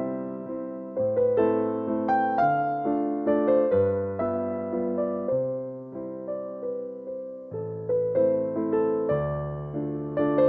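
Background music: a gentle electric piano melody over a slow-changing bass line, with notes struck and decaying.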